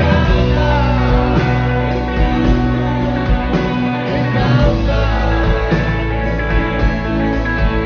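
Live rock band playing loudly, with an electric guitar to the fore over a heavy low end, and some singing in the mix.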